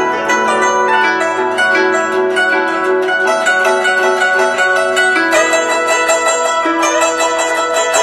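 Guzheng played solo: a fast stream of plucked notes that ring on one over another.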